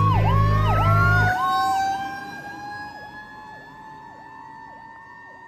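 Fire truck responding with an air horn blast that ends about a second and a half in. Under the horn, an electronic siren repeats quick falling whoops, about three a second, and a second siren slowly rises in pitch. The whole sound fades away toward the end.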